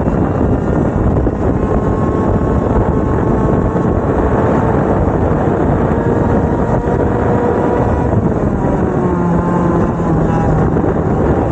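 Two-stroke racing kart engines running hard, their pitch rising and falling as they rev through the corners.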